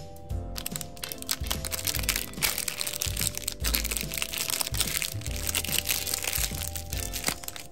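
Crinkling and crackling of a crimped plastic candy wrapper as fingers tear it open, over background music with a pulsing low beat.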